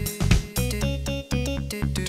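Background music with a drum beat and bass under pitched keyboard-like notes.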